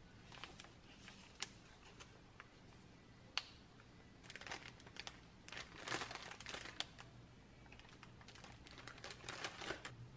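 Thin plastic packaging crinkling as it is handled, the plastic-wrapped pack of disposable face masks among it, in two spells from about the middle and again near the end. Before that, a few sharp light taps.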